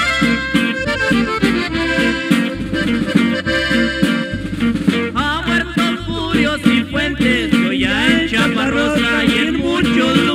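Conjunto band playing an instrumental passage of a corrido: an accordion-toned lead plays quick runs over a pulsing bass line.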